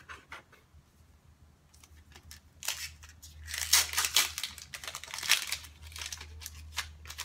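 A foil Pokémon trading-card booster pack being torn open and crinkled in the hands. There are a few faint rustles at first, then a loud crackling of the wrapper from nearly three seconds in.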